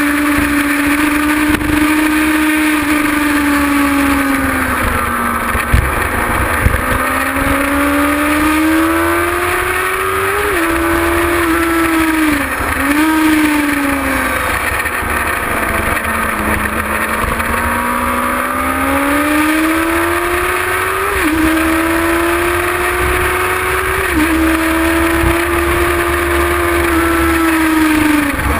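Kawasaki ZX-6R's inline-four engine heard from onboard at track speed. The revs climb and fall through the corners, with sudden pitch steps at the gear changes, over a rough rush of wind on the microphone.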